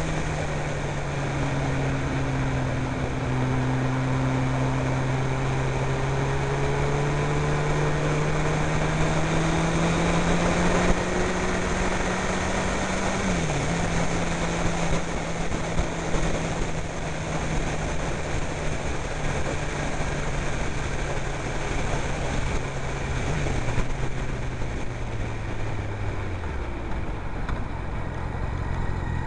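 Honda CBR sportbike engine running at cruising revs under heavy wind rush, its pitch climbing slowly and dipping sharply twice at gear changes. Its note falls away near the end as the bike slows.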